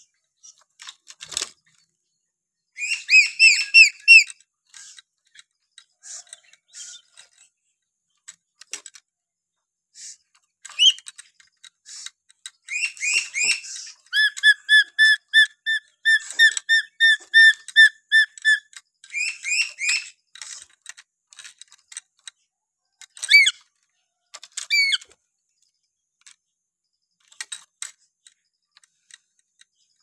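Black-capped lory whistling in short phrases, with a fast run of repeated whistled notes, about four a second, from about 14 to 18 seconds in.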